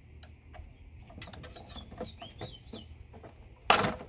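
Plastic battery case lid being handled and worked loose from its box: light clicks and rattles, then one louder clatter near the end. A bird chirps a few times in the background.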